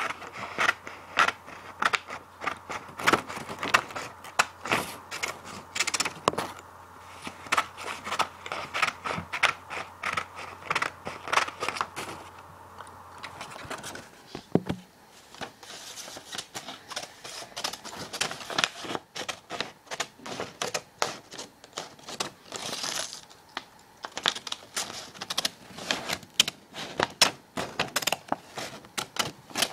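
Scissors cutting paper: a long run of quick, irregular snips with the scrape of the blades through the sheet.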